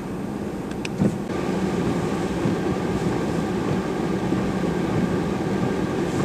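A vehicle's engine running steadily with road noise while driving, with one sharp knock about a second in, after which it runs slightly louder.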